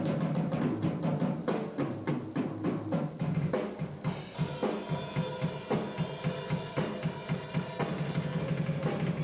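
Acoustic drum kit played around the whole kit for a studio soundcheck: rapid strokes across the drums, then about four seconds in a cymbal crash that keeps ringing over a steady beat.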